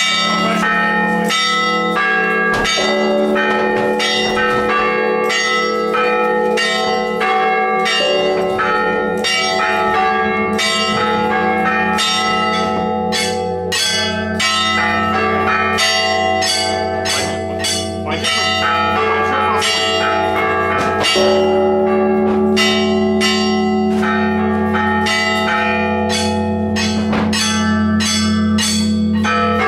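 Orthodox church bells of the Uspensky (Dormition) cathedral ringing in a full peal: smaller bells struck in quick, irregular strokes, about two or three a second, over the long hum of larger bells. A deeper bell's hum joins about eight seconds in.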